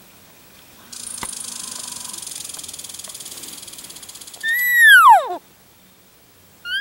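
Elk cow calls: a loud, high mew sliding steeply down in pitch about two-thirds of the way through, and a second mew starting near the end. Before them, a softer raspy high buzz lasts about three seconds.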